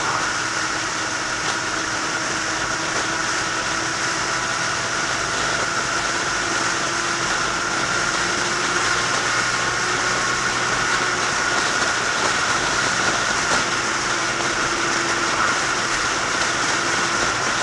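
Motorcycle cruising at steady speed: a steady engine drone mixed with wind and road noise.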